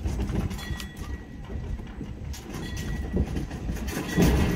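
Small narrow-gauge tourist-train locomotive moving along the jetty track: a low rumble with scattered clicks from the wheels on the rails, louder near the end.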